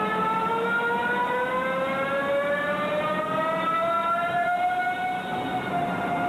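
Electric drive of a Berlin S-Bahn train whining as the train gets moving, a stack of tones rising steadily in pitch for about five seconds, then holding level.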